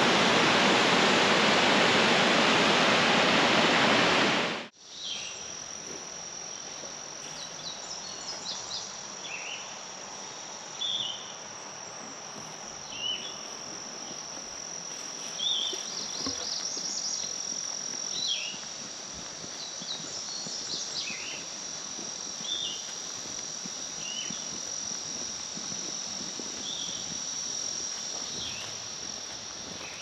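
Steady roar of a waterfall rushing into a gorge for the first few seconds, which cuts off abruptly. Then comes a quieter outdoor background: insects droning on one steady high note, with short bird chirps scattered throughout.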